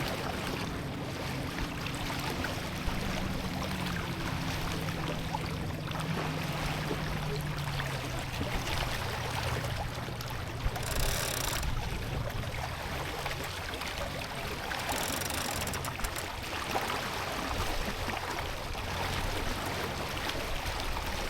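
Water rushing and hissing along a sailboat's hull as it sails under spinnaker, with wind noise on the microphone; twice near the middle a brief louder hiss, like spray.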